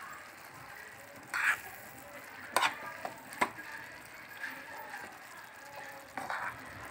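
A spoon stirring instant noodles and vegetables in a frying pan, scraping and tapping against the pan a few times, over the steady sizzle of the simmering noodles.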